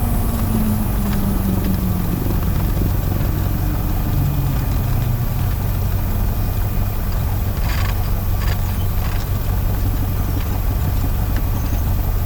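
Piper Warrior's four-cylinder piston engine running at low power, heard inside the cabin as a steady drone; a low tone slides down in pitch during the first couple of seconds as the revs settle, and a few short clicks come about eight seconds in.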